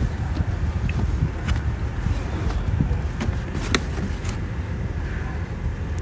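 Shopping cart rolling over a hard store floor: a steady low rumble of the wheels, with a few sharp clicks and rattles.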